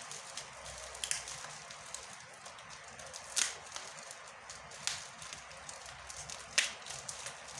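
Bubble wrap crinkling and rustling as hands work it off a small package, with four sharper snaps spread through.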